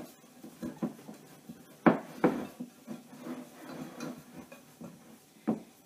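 Hands working sticky bread dough in a glass mixing bowl: quiet scraping and handling, with a few sharp knocks of the glass bowl, the loudest about two seconds in and another near the end.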